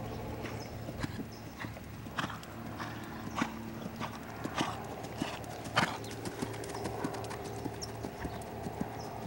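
Hoofbeats of a ridden Lusitano stallion moving over arena sand, a steady rhythm of about two beats a second.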